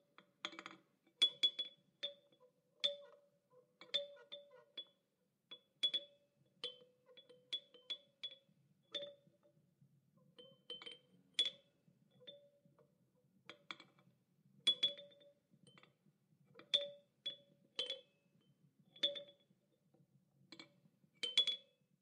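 Child's toy chime clinking and clanking in an irregular run of strikes, about one to two a second. Each strike is sharp and rings briefly on a low and a high note.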